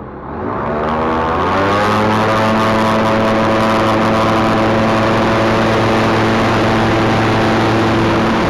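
Weight-shift microlight trike's engine and pusher propeller throttling up to full power for the take-off roll: the pitch rises over the first second or two, then holds steady and loud.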